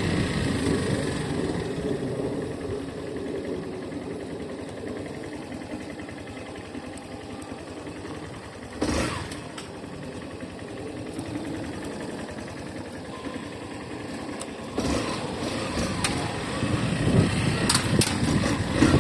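Yamaha Factor 150's single-cylinder engine running quietly with the stock air-filter cover on. It eases off over the first several seconds and gets louder again near the end, with a short knock about nine seconds in.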